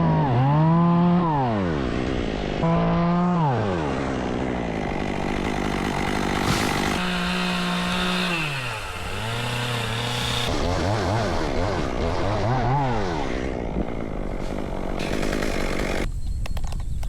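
Two-stroke Stihl chainsaw running at high revs, its pitch dipping and recovering several times as it works in wood. About nine seconds in it drops to idle, is blipped up and down a few times, then its engine note fades out.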